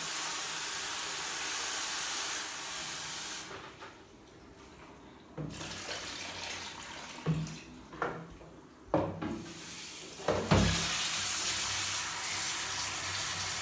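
A kitchen tap runs steadily into a plastic basin, then stops. Water is poured from the basin over leafy greens in a steel pot, with several splashes and knocks. Then the tap runs again.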